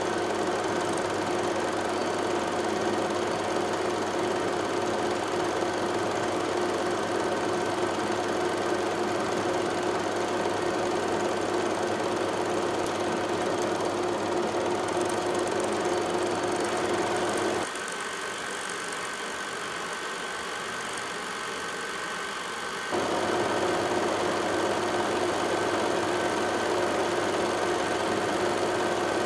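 A steady mechanical hum with a few fixed tones and no rhythm. It drops suddenly to a quieter, thinner hum about 18 seconds in and comes back just as suddenly about five seconds later.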